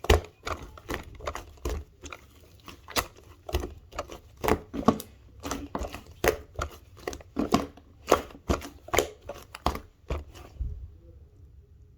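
Slime being squished and poked by hand: a quick, uneven run of sharp clicking pops that stops about ten seconds in.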